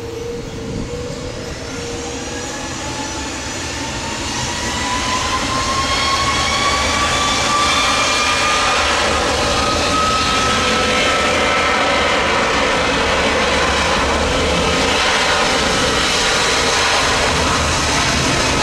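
Twin-engine widebody jet airliner's engines spooling up to takeoff thrust. A whine rises in pitch and the noise builds over the first six seconds or so, then holds steady and loud as the aircraft starts its takeoff roll.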